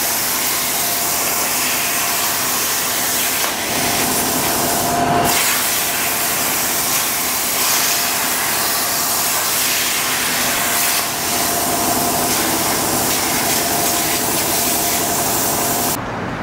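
CNC plasma torch cutting 1.8 mm stainless steel sheet: the plasma arc and gas jet make a loud, steady hiss with a faint steady tone running through it. The hiss stops abruptly near the end.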